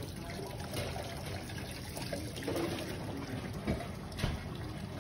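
Tap water running into a stainless steel sink and splashing over hands as they rinse leftover charred skin off a peeled, fire-roasted eggplant. Two light knocks sound in the second half.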